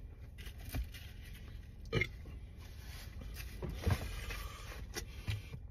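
A few short, soft gulping and throat sounds from a man drinking lemonade from a plastic bottle, spread out over several seconds.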